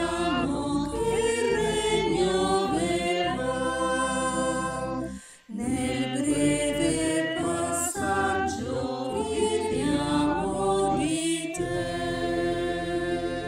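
A choir singing, with a brief pause between phrases about five seconds in.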